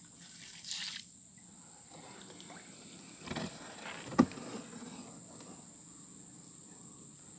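Steady high-pitched drone of insects in swamp forest, with a few short louder noises about one, three and four seconds in, the sharpest near four seconds.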